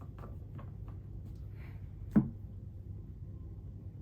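Tarot cards being handled on a table: a few faint clicks, then a single knock about two seconds in, over a steady low hum.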